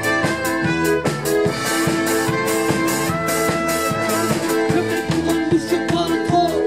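Live folk band playing: trumpet, acoustic guitar and button accordion over a drum kit keeping a steady beat.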